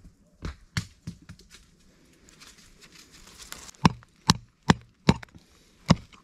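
A short-handled hand pick striking into stony soil. There are three lighter knocks near the start, then, from just before the four-second mark, five sharper strikes about every half second.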